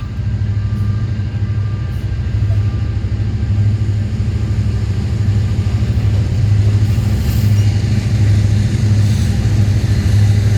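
Diesel locomotive engine running steadily, a deep even drone.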